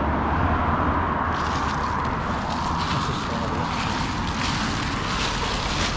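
Road traffic passing close by: a steady rush of tyre and engine noise that swells and eases, with a low rumble of wind on the microphone.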